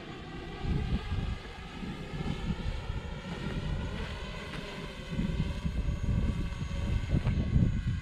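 DJI Mavic Pro quadcopter's propellers whining steadily, a hum made of many even tones. Gusts of wind buffet the microphone with an uneven low rumble.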